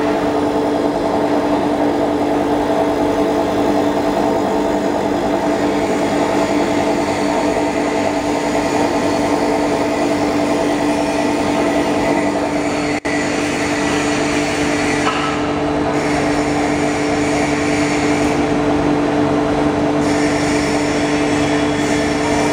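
Foam slicing machine running steadily while it cuts memory foam into a thin continuous sheet: a constant mechanical hum with several held tones.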